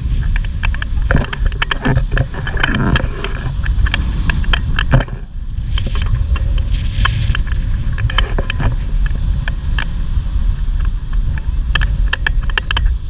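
Shallow surf washing around a GoPro held in the water's edge: a heavy low rumble on the microphone, with many sharp clicks and splashes of water hitting the camera. The sound dips briefly about five seconds in.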